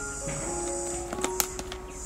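Background music playing a simple melody of held notes, with a few sharp plastic clicks about a second and a half in as a plastic screw lid is set onto a plastic jar. A steady high insect buzz sits behind it in the first half.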